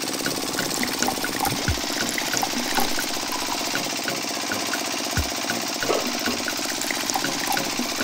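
Small motor of a miniature toy crusher running with a rapid, steady chugging rhythm as it grinds green grapes, with two low thumps about three and a half seconds apart.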